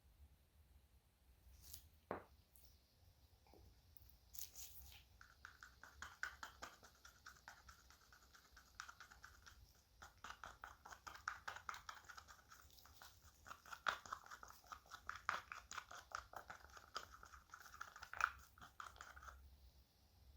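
Faint, quick scraping strokes of a stick stirring pigment into epoxy casting resin in a mixing cup, after a few light clicks; the stirring stops abruptly near the end.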